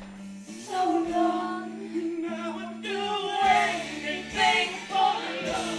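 Singing over a backing track of steady held chords. The sung line starts about half a second in and rises and falls in short phrases.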